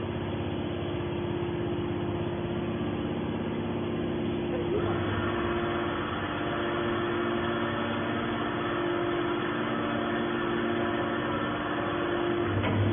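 Hydraulic can baler's power unit, electric motor and pump, running with a steady hum. About five seconds in, a hiss joins it and carries on.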